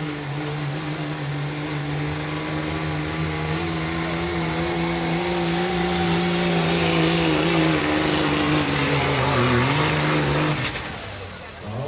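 Dodge Ram diesel pickup engine held at full throttle, pulling a loaded sled at a steady pitch, dipping briefly near the end. It then drops off sharply, leaving a high whistle that falls in pitch.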